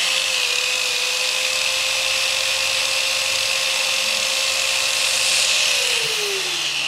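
Several corded power tools running at once: a heat gun and a hair dryer blowing with a steady hiss, under the whine of an electric drill and an angle grinder. About six seconds in, one motor's whine falls in pitch as it winds down. Together the tools draw about four kilowatts from the truck's outlet.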